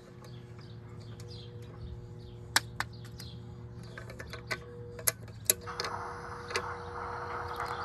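Faint bird chirps and a few sharp clicks over a steady hum, then from about six seconds in a rising whir of an HO scale EMD NW2 model locomotive's motor and helical gears starting up.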